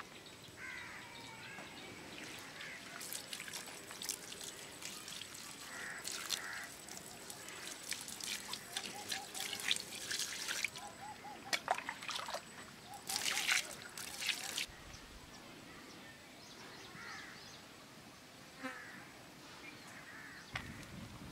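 Water poured and splashing over a plucked whole chicken as it is rinsed and rubbed by hand, in uneven splashes and trickles, heaviest about two-thirds of the way through.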